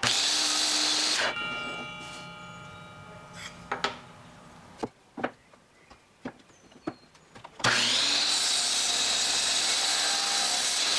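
Power saw cutting twice. The first run stops after about a second and the blade winds down with a fading whine, then a few sharp knocks come as the workpiece is handled. A second cut starts a little past halfway.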